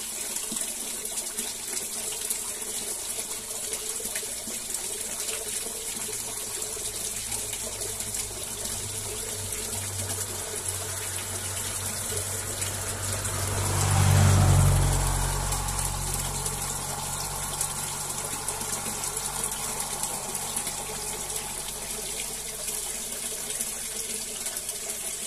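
Steady watery hiss, with a low rumble that swells to a peak about halfway through and then fades away.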